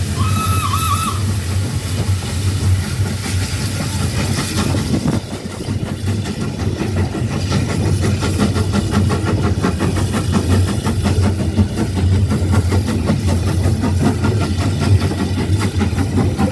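Small steam tank engine working hard, its chimney exhaust beating steadily, heard from an open carriage just behind it over a continuous low rumble of the train. A hiss of steam runs through the first few seconds.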